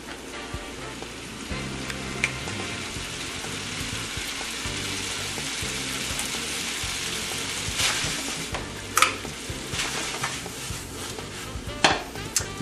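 Spaghetti in a fresh tomato and garlic sauce sizzling in a hot pan, a steady frying hiss, with a few sharp clinks of the pan or a utensil later on.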